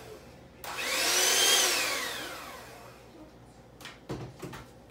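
Electric hand mixer beating eggs and sugar in a stainless steel bowl: it starts suddenly about half a second in, its whine rising and then falling as it fades over about two seconds. A few short knocks follow near the end.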